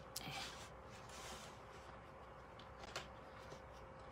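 Quiet desk handling as a plastic watercolour palette is set down and the paper shifted. There is a light click and a brief rustle at the start and a soft tap about three seconds in, over a faint steady hum.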